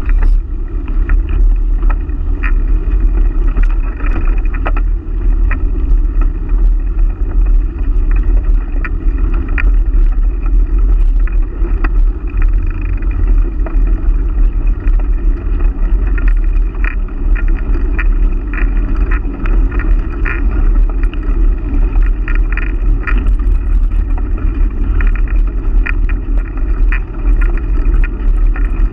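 Steady low rumble of wind on the microphone and bicycle tyres rolling over a rough asphalt path, filmed from a moving bike, with scattered light clicks and rattles from the bike.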